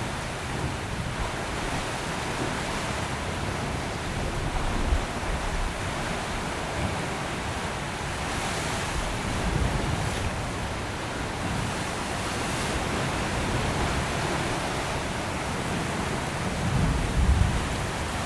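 Ocean surf washing steadily over shoreline rocks and tidepools. A few louder low surges come and go, the biggest near the end.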